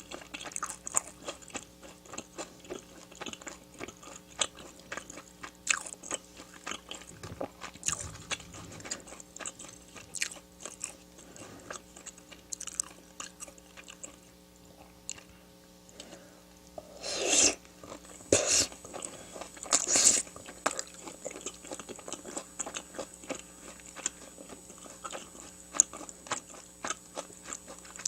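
Close-miked eating: steady chewing and crunching of crisp fried food, many small crackles with each bite. There are a few louder crunches a little past halfway, over a faint steady hum.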